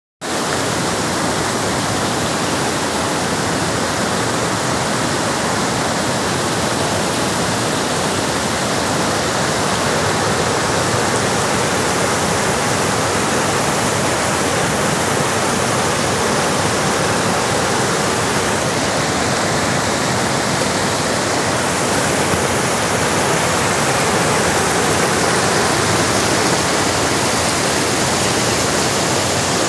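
Shallow rocky river rushing over boulders and small rapids: a steady, loud rush of water.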